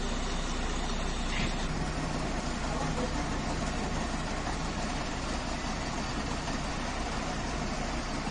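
A steady engine hum over an even background noise, with no clear change.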